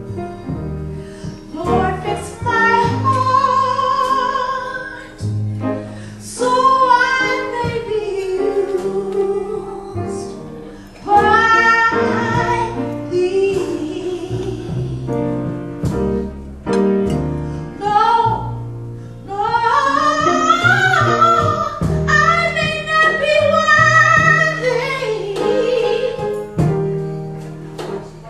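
A woman singing a slow ballad live with a jazz piano trio: her voice carries the melody in long held notes over piano accompaniment.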